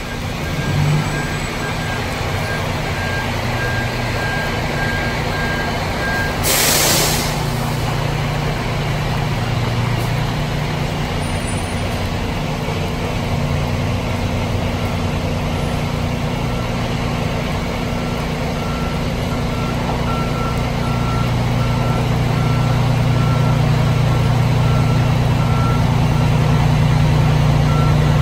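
Fire engine's diesel engine running as it reverses, its backup alarm beeping steadily. A short hiss of air brakes comes about six and a half seconds in, and the engine grows louder as it nears, toward the end.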